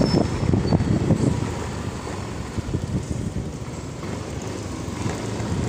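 Wind buffeting the microphone over a motorcycle's engine and road noise while riding. The rumble eases off in the middle and builds again near the end.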